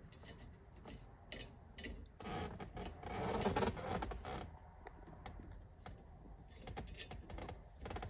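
Faint small metal clicks and scraping as a 27 mm nut and washer are spun on by hand onto the steering column shaft of a 1968 Volkswagen Beetle, with a louder rustle of handling between about two and four seconds in.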